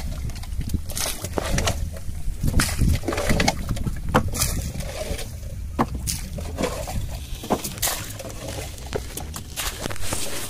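Water sloshing and splashing around a small rowboat, with irregular knocks and clicks, over a steady low rumble.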